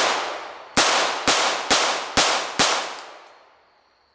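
Smith & Wesson 351PD .22 Magnum revolver fired rapidly: the echo of one shot at the start, then five more shots about two a second, each ringing out before the next. These are the last rounds of the seven-shot cylinder.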